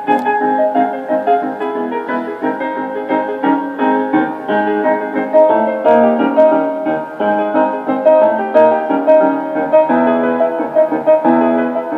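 Piano music playing from a restored 1946 AM tube radio's speaker, a quick run of notes that keeps on changing.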